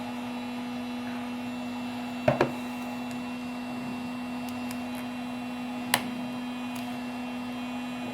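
A steady electrical hum throughout, with a quick double click about two seconds in and a single sharp click about six seconds in, from small tools and phone parts being handled on the workbench.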